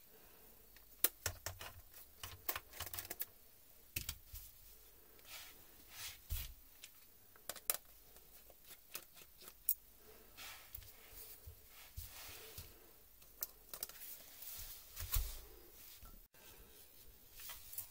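Small screwdriver prying and scraping at a laptop keyboard's metal backing plate and the plastic top cover it is clipped into, giving irregular sharp clicks, taps and short scrapes, densest in the first few seconds.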